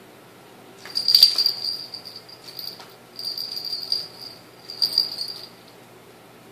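Small cat toy ball rattling and jingling in four bursts as a kitten bats it around inside a plastic laundry basket, the first burst the loudest.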